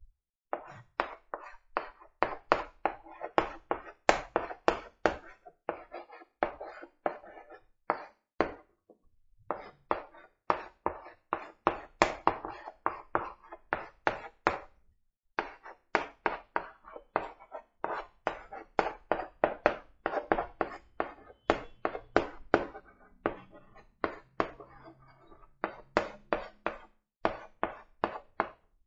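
Chalk writing on a blackboard: a quick, irregular run of short taps and scrapes as each letter is stroked out, with a few brief pauses.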